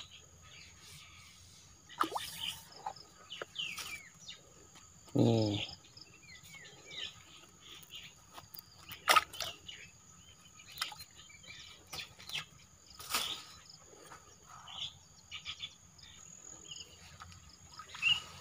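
Outdoor rural ambience: scattered bird chirps and short calls with a faint steady high insect hum. A brief low voice-like sound comes about five seconds in.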